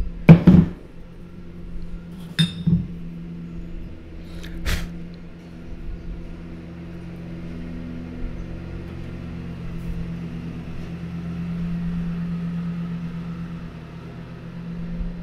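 A few sharp clinks and knocks as a small ink vessel is handled on the table: the loudest about half a second in, others near two and a half and five seconds. After that a steady low hum fills the room, swelling slightly near the end.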